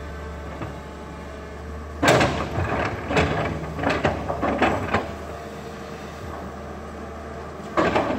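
Tracked excavator's engine running steadily, with a few bursts of rock scraping and knocking from about two to five seconds in as the bucket works large stone blocks into a wall.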